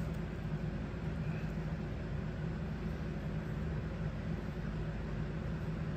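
Steady low hum over a faint even hiss: room tone, with no distinct sound events.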